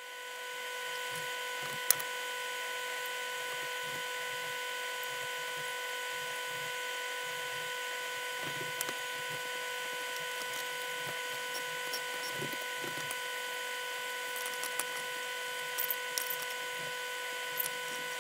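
A steady, even hum fades in over the first second and holds throughout. Over it come scattered faint knocks and a few sharp clicks from a round ceiling light fixture being handled and fastened in place.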